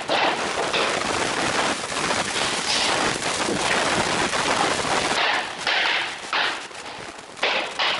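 A hammer striking a wooden tapping block against the edge of a floor plank in quick repeated knocks, driving the plank's joint tight against the row already laid. The knocks come in a fast run, then as separate strikes about half a second apart near the end.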